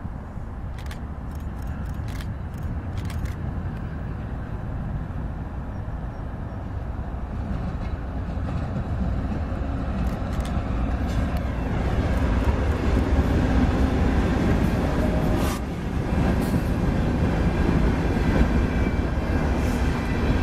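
CSX freight train led by two GE ES40DC diesel-electric locomotives approaching and passing, its low rumble growing louder from about eight seconds in, then freight cars rolling by on the rails. A few sharp clicks sound in the first few seconds.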